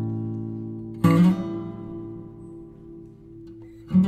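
Background music: acoustic guitar chords strummed and left to ring out, with a new strum about a second in and another near the end.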